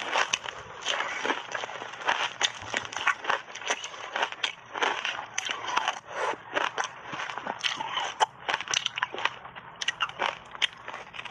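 Close-miked crunching and chewing of ice coated in matcha and milk powder: a dense, irregular run of sharp cracks and crackles.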